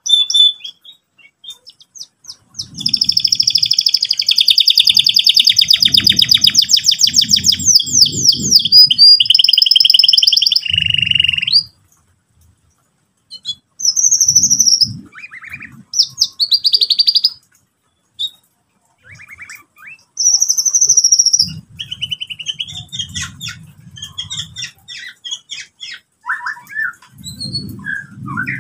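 Canary singing: a long, fast rolling trill, then shorter trilled phrases and chirps broken by brief pauses.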